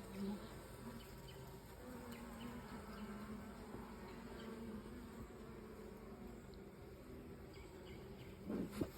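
Honey bees buzzing steadily around an open hive, a faint drone of many wingbeats with a low hum that swells and fades slightly.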